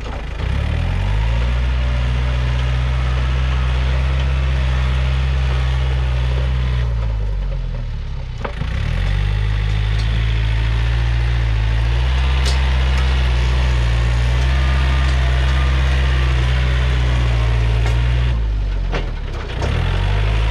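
Yanmar EF514T tractor's diesel engine running steadily at high revs while the tractor pushes soil. The revs drop and recover briefly three times: right at the start, about eight seconds in, and about nineteen seconds in.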